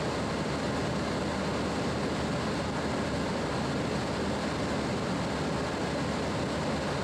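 Steady, even cockpit noise of a Boeing 767-300ER rolling slowly toward its gate with its engines at idle.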